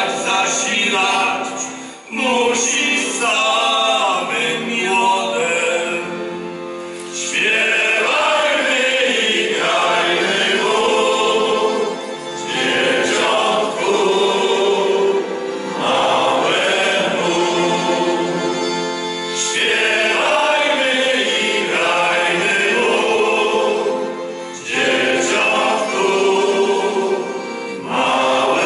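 Male choir singing a Polish folk song in harmony, with accordion accompaniment, in phrases separated by short breaths every few seconds.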